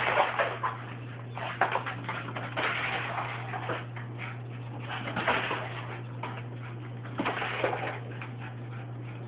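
A dog's claws clicking and skittering on a hard floor in several short bursts while it chases a laser dot, over a steady low hum.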